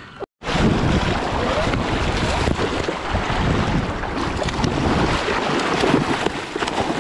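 River water splashing and rushing close to the microphone, with wind buffeting the microphone. It starts abruptly after a brief dropout about a third of a second in, then runs on as a loud, dense wash of noise.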